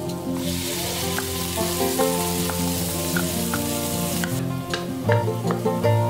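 Chopped green onions hitting hot oil in a wok: a loud sizzle starts about half a second in and dies back after about four seconds, followed by a few light clicks.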